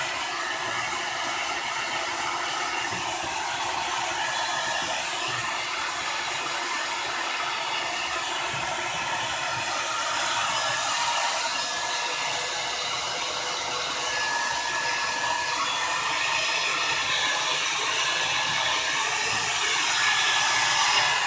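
Handheld hair dryer blowing steadily, its motor and airflow making a continuous whir with a faint shifting whine, as it heats crayon wax on a mirror.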